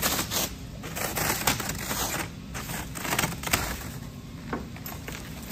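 Clear plastic stretch wrap and the silver foil wrapping beneath it crinkling and rustling in irregular bursts as they are pulled and torn off by hand.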